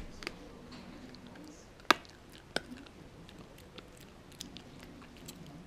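A small terrier biting and chewing at a thin chew stick held in a hand, giving scattered sharp crunching clicks. The two loudest come about two seconds in and half a second later.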